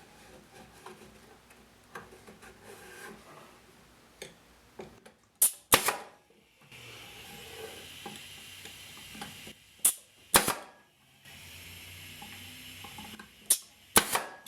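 Pneumatic crown stapler firing six sharp shots in three close pairs, with a steady hiss of compressed air between the pairs from leaking air fittings.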